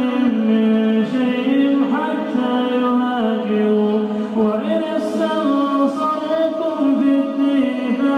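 A man reciting the Quran in melodic tajweed chant, unaccompanied, holding long notes that step and glide between pitches.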